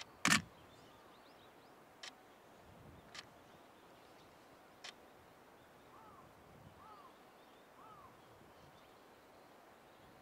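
Quiet outdoor ambience with a sharp snap just after the start and three fainter ticks spread over the next few seconds. In the second half a bird gives three short arched calls about a second apart.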